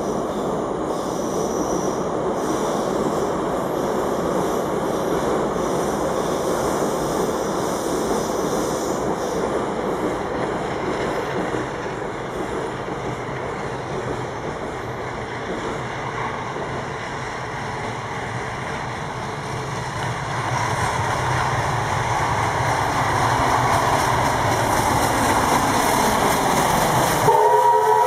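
Steam locomotive L-5259, a Soviet L-class 2-10-0, approaching with a steady rumbling running noise that grows louder over the last third. Near the end it sounds its steam whistle, a steady blast of several tones together.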